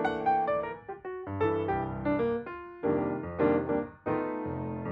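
Background piano music: a gentle melody of single notes and chords, each note starting sharply and fading away.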